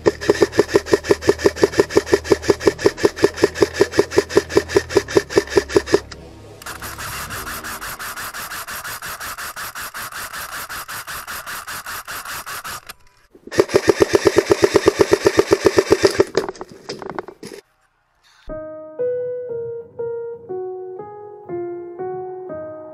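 Airsoft electric guns firing on full-auto at about seven or eight shots a second: a long burst of about six seconds, then a quieter, more even rattle, and another burst of a few seconds. After a brief silence near the end, the start of a music track begins with short keyboard notes.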